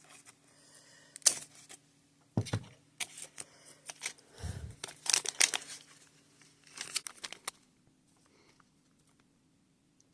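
Crinkling and rustling of a small plastic toy-kit packet being handled, with scattered clicks and two dull knocks near the middle. A faint steady hum underneath stops about three-quarters of the way through, and the handling noise dies away with it.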